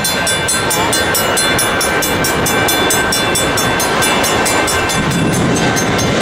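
Jet engines of a FedEx cargo plane on final approach: a loud, steady rush with a high whine over it.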